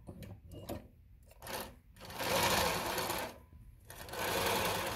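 Consew CN2053R-1A zig-zag industrial sewing machine stitching in two short runs, one about two seconds in and one near the end, with a few faint clicks before. The stitch length is set to its shortest, number one.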